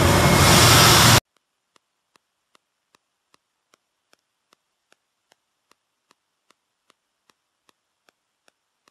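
Steady factory machinery noise from a thermoforming line, a loud hiss over a low hum, that cuts off abruptly about a second in. Near silence follows, with faint regular ticks about two and a half times a second.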